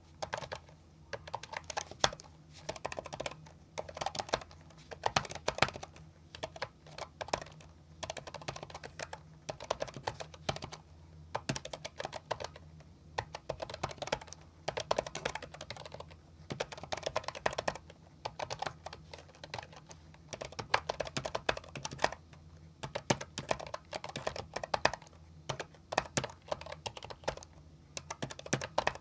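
Typing on a mechanical gaming keyboard: rapid runs of keystrokes with brief pauses between them.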